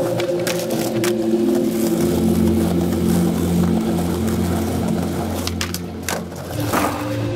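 Skateboard wheels rolling on pavement, with sharp clacks of the board: two near the start and a cluster about six seconds in. Steady organ-like background music plays underneath.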